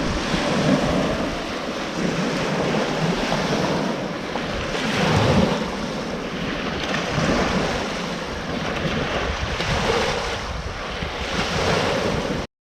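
Lake waves washing up on the shore in a strong wind, in surges every few seconds, with wind buffeting the microphone. The sound cuts off abruptly near the end.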